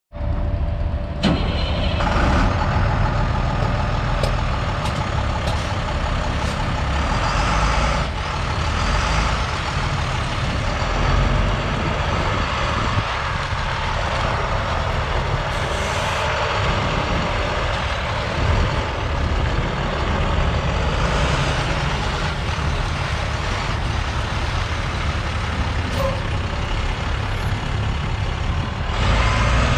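2006 International boom chipper dump truck's diesel engine idling steadily.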